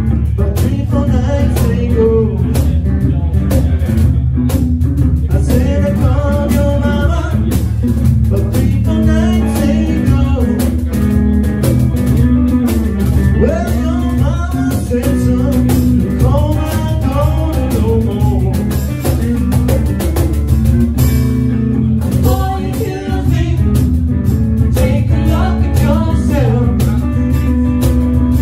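Live blues band: a man sings lead into a microphone over a hollow-body electric guitar and cajón percussion, playing continuously.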